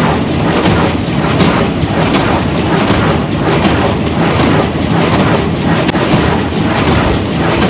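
Tractor-driven hay baler running, with a steady mechanical pulse about twice a second over the engine.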